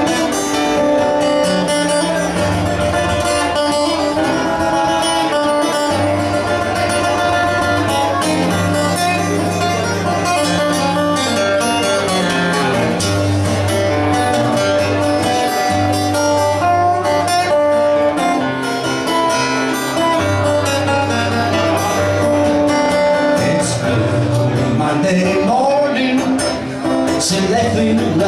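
Acoustic guitar played solo live, with sustained low bass notes under a line of picked melody notes.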